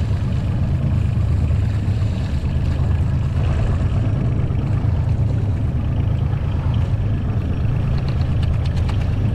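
Boat engine running steadily with a low hum, and a few faint clicks near the end.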